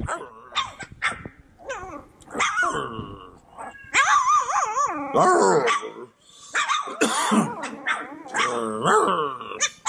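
A litter of three-week-old Cane Corso puppies yipping, barking and growling, several at once, in high wavering calls that grow dense and loud from about four seconds in.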